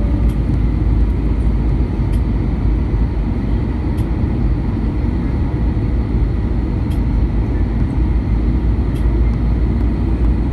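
Steady low rumble of airflow and jet engine noise inside the cabin of an Airbus A320 descending on approach to land, heard from a window seat by the wing.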